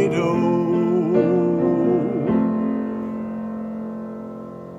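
Piano accompaniment closing out a song: a held chord that fades away over the last couple of seconds.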